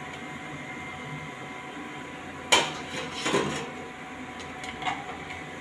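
Metal kitchenware clattering as fried bomb pakoras are lifted from the oil with a wire skimmer and set on a steel plate: one sharp clank about halfway through, then a few lighter knocks.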